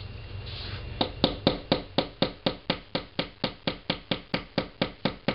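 A hammer rapidly and steadily driving fasteners into a laminated flat-pack shelf board, about four blows a second, starting about a second in.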